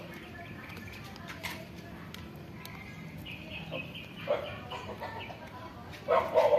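Animal calls: a short run of high chirping notes about three seconds in, then a loud run of rapid yelping calls starting near the end.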